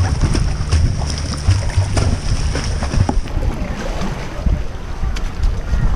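Wind rumbling on the microphone of a camera mounted on a kayak, with water splashing and sloshing from the paddle strokes.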